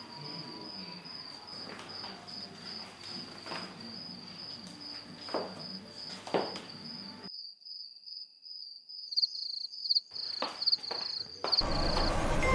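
Cricket chirping in a steady, high-pitched pulsing trill, with a few soft knocks in the first half. Music comes in near the end.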